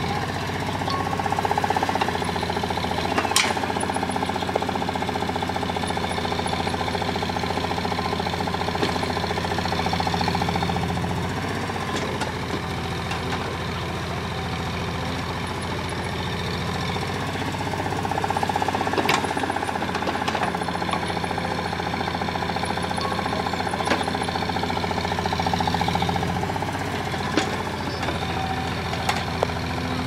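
Caterpillar E140 hydraulic excavator's diesel engine running steadily, pulling harder several times as the boom and bucket dig into the soil. A few sharp knocks stand out over it.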